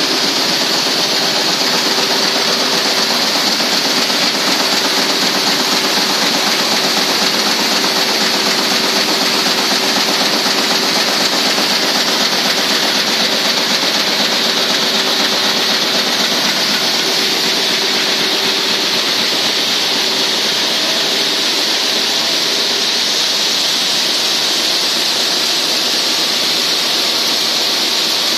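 Tecnova single-screw plastic recycling pelletizing line running, with granules pouring down a chute. Even, unchanging machine noise with a strong high hiss and a faint steady hum.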